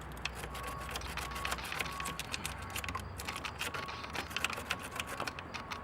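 A battery terminal cleaning brush scraping a corroded battery cable clamp in quick, irregular strokes that sound as a rapid series of scratches and clicks, clearing the corrosion that blocks a good connection.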